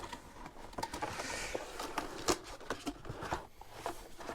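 Cardboard box and packaging being handled: scattered light knocks and clicks, with a brief rustling slide about a second in.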